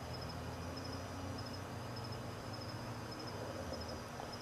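Crickets chirping faintly in an even, repeating rhythm at one high pitch, over a low steady hum.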